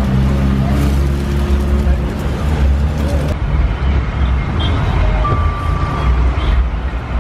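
Steady low rumble of passing road traffic, with faint voices in the background.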